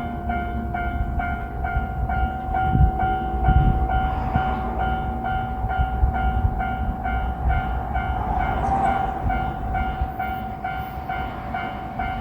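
Japanese level crossing alarm ringing a repeating kan-kan about twice a second while a train rumbles through the crossing, with heavier wheel thumps a few seconds in.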